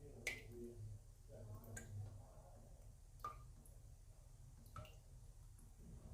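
Single water drops falling one at a time, about one every second and a half, each a short sharp plink, over a faint low hum.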